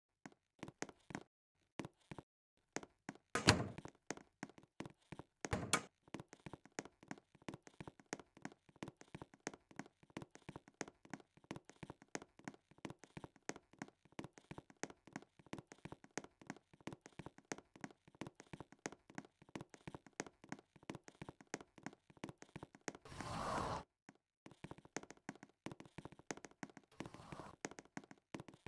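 A rapid run of light clicks and taps, several a second, with two louder knocks a few seconds in and a short rustling burst near the end.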